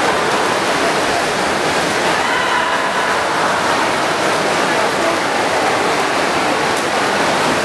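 Steady wash of splashing water from freestyle swimmers churning through the pool, heard over a background of spectators' voices in the pool hall.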